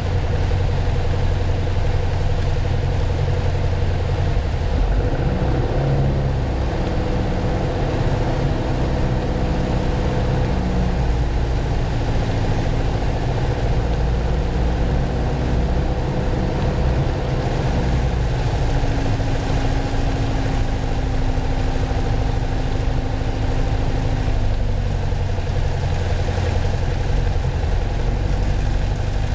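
Piper Archer II's four-cylinder Lycoming O-360 engine and propeller droning, heard from inside the cockpit on final approach. The drone shifts in pitch a few times, over a steady hiss of air and rain rushing past the airframe.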